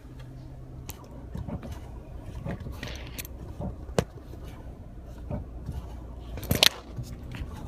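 Clicks and creaks from a 2010 Chrysler 300's brake pedal being worked to reproduce a noise that has returned after a repair, heard inside the cabin over a low steady hum. There is a sharp single click about four seconds in and a louder cluster of clicks near the end.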